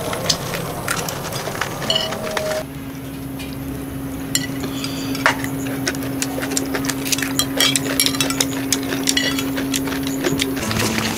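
Cutlery clicking and scraping on plates while eating: many small, irregular clinks. A steady low hum runs from about two and a half seconds in until near the end.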